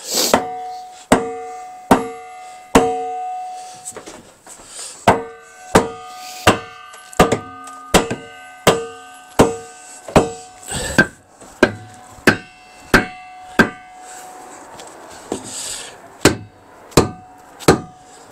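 Hammer tapping wedges in to hold a church bell in its frame. There are about twenty sharp taps, roughly one every three-quarters of a second, in three runs: four, then a long run of about a dozen, then three near the end. Each tap leaves a short metallic ring.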